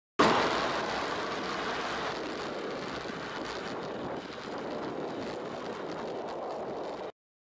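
Steady rushing wind and road noise on a bicycle-mounted camera's microphone while riding, with traffic mixed in; it cuts in and out abruptly, loudest right at the start.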